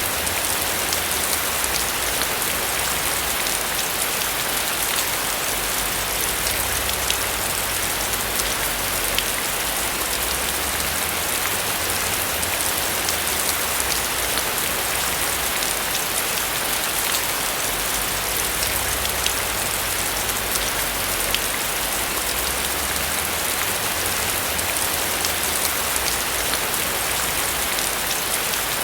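Steady rain falling on a roof, a dense even patter of drops with faint individual drop ticks.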